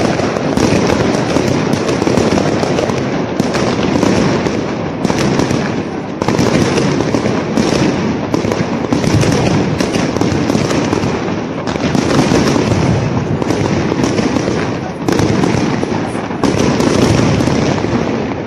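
Fireworks display with many shells bursting at once: a dense, unbroken barrage of bangs and crackle.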